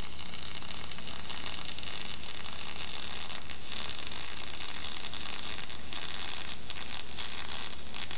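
Steady hiss over a low mains hum, with no other sound: the background noise of an old analog videotape soundtrack.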